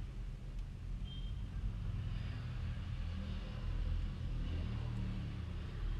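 A vehicle engine idling steadily, a low even hum, with a brief faint high beep about a second in.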